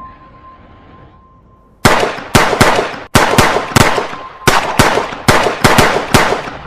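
A rapid, irregular volley of gunshots, more than a dozen sharp cracks in about five seconds, starting about two seconds in. It is preceded by a steady high ringing tone that stops as the firing begins.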